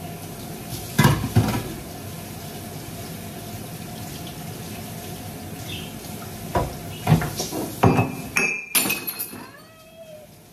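Tap water running into a kitchen sink during hand dish-washing, with dishes clattering against each other several times. The running water stops near the end.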